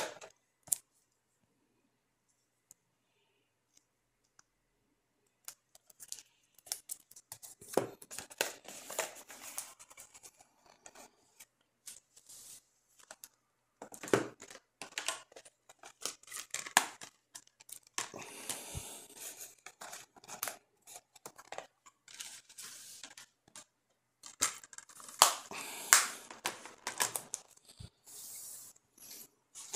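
Plastic DVD and Blu-ray cases handled on a wooden table: irregular clacks, taps and scraping as they are picked up, slid and set down, with several louder clacks. It is nearly quiet for the first few seconds.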